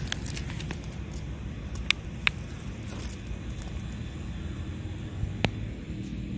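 A dog's metal chain collar and leash clip clinking a few times, two clinks close together about two seconds in and another near the end, over a steady low outdoor rumble.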